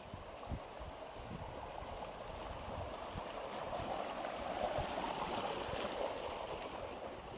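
Steady rushing of flowing water, swelling in the middle and easing toward the end, with faint low thumps beneath it.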